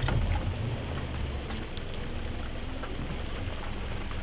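Steady hiss of water and wind noise with a low rumble underneath.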